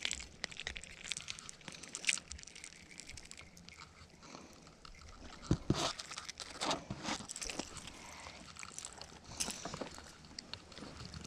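Irregular rustling and crinkling with scattered sharp clicks: gloved hands and sleeves handling a small bass while the lure's hook is worked free of its mouth.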